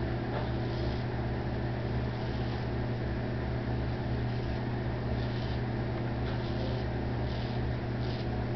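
A steady low mechanical hum, the loudest sound, with faint short scrapes of a straight razor drawn over lathered stubble, a few strokes spaced about a second apart.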